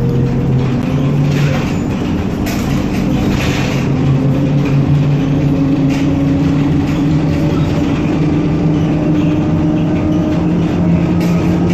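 ZiU-682 trolleybus on the move, its electric traction motor giving a steady hum of several tones that drift slowly up and down in pitch as the speed changes. Under it is a constant rumble of road and body noise with a few light rattles.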